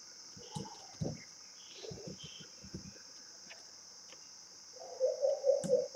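A few computer keyboard keystrokes scattered through the first three seconds, over a steady high-pitched hiss. About five seconds in, a louder, low pulsing tone starts, at about four to five pulses a second.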